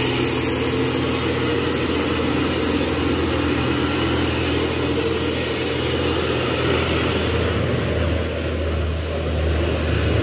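Heavy diesel truck engines running as trucks pass slowly on the climb: a steady low drone. Near the end another truck gets louder as it passes close by.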